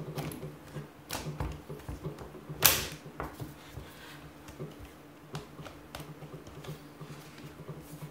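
Hard plastic clips of a Supcase Unicorn Beetle Pro rugged case clicking and knocking as its front frame is forced onto an iPad Pro, irregular clicks with one louder knock about two and a half seconds in.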